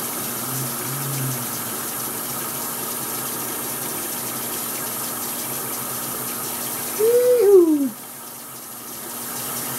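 Bathroom sink tap running steadily. About seven seconds in, a short hummed vocal sound rises and then falls in pitch.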